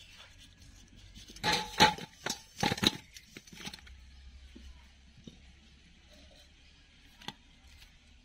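Sugar-crusted pieces of candied winter melon sliding and dropping from an aluminium pan onto a steel plate: two short bursts of clattering and scraping with a slight metallic ring, then a single light click near the end.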